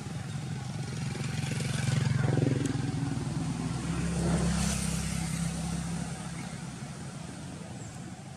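Road traffic: engines of passing vehicles, growing louder about two seconds in and again about four seconds in, then fading away.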